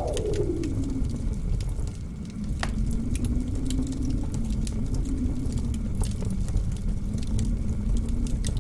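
Blizzard wind howling, its whistling tone wavering up and down over a low rumble, with the scattered crackles and pops of a wood fire burning in a fireplace.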